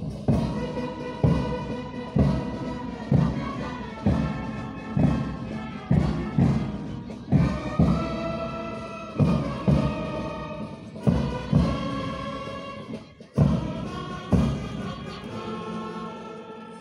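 Music with a heavy drum beat, one stroke about every second, under sustained tones, dying away at the very end.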